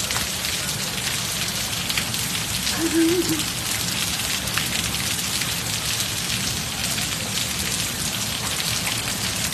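Heavy rain falling steadily on paved ground: a dense, even hiss with many individual drops ticking close by.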